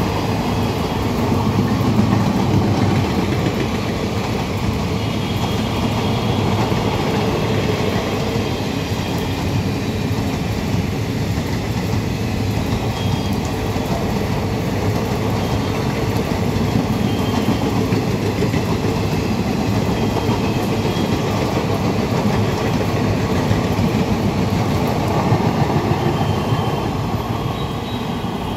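Indian Railways passenger coaches rolling past: a loud, steady rumble of steel wheels on the rails, easing off slightly near the end as the last coach passes.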